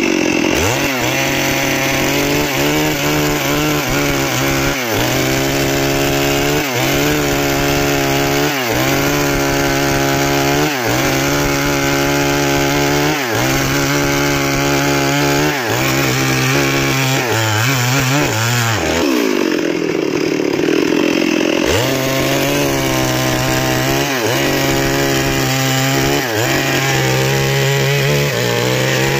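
STIHL two-stroke chainsaw running at high revs while ripping a log lengthwise, its engine pitch dipping under load and recovering about every two seconds as the bar is worked through the cut. About two-thirds of the way through the revs sag for a couple of seconds, then climb back into the cut.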